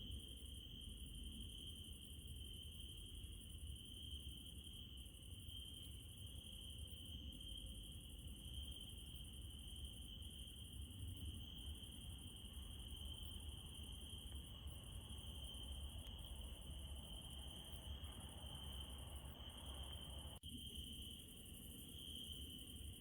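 Crickets chirping in a steady, continuous high chirr over a low background rumble, with a single faint click about twenty seconds in.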